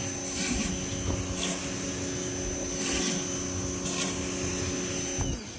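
Ryobi pressure washer running with a 12-inch surface cleaner spraying on concrete: a steady pump hum under a hiss of high-pressure water that swells every second or so. It stops shortly before the end.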